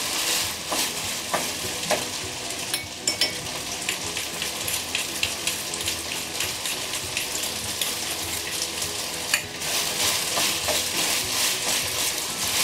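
Seasoned raw glutinous rice stir-frying in a nonstick frying pan: a steady sizzle, with a wooden spatula scraping and knocking against the pan as the rice is turned, briefly easing off about three and nine seconds in. This is the stage of frying the raw rice until it turns half-translucent.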